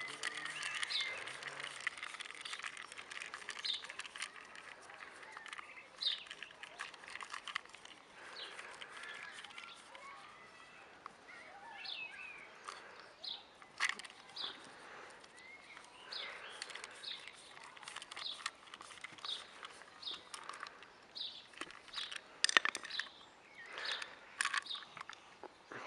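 Birds chirping over and over in short, quick high calls, with scattered sharp clicks and taps.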